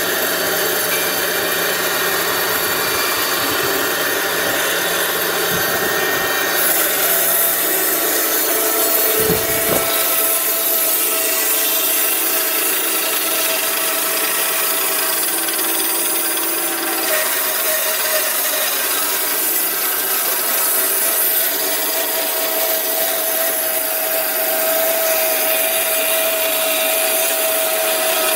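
Horizontal band sawmills cutting through logs: a steady rasping hiss of the band blade in the wood with a steady tone under it. The sound changes about nine seconds in, as a second mill, an STP FP 800, takes over the cut.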